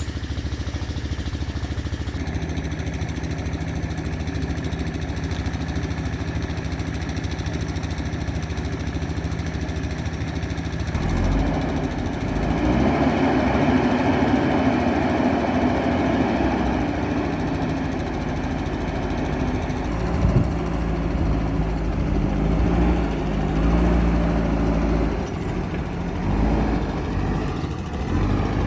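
JCB backhoe loader's diesel engine running steadily at idle, then revving up under load about a third of the way in, its pitch rising and falling as the machine works.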